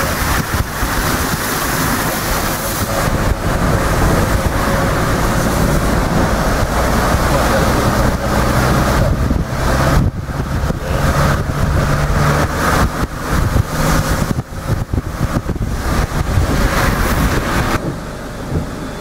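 Four-wheel-drive car driving with its window down: the engine runs under wind buffeting the microphone and the rush of floodwater. The sound drops abruptly near the end.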